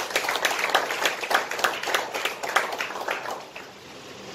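Audience applause, many hands clapping, thinning out and dying away about three and a half seconds in.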